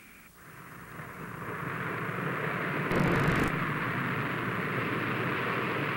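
Boeing 377 Stratocruiser airliner's four radial piston engines running at high power as it rolls along the runway. The noise swells over the first two seconds, then holds steady, with a brief crackle burst about halfway through.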